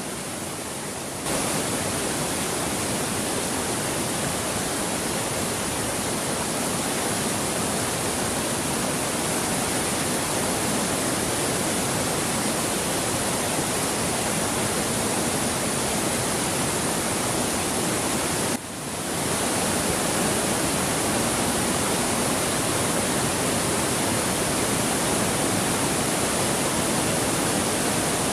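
Waterfall in heavy monsoon flow: a steady, dense rush of falling water. It jumps louder abruptly about a second in and dips sharply for a moment about two-thirds of the way through.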